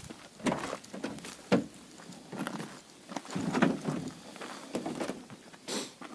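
Footsteps on gravel and the rear door of a van being unlatched and swung open, then handling in the cargo area: a string of irregular crunches, clicks and knocks.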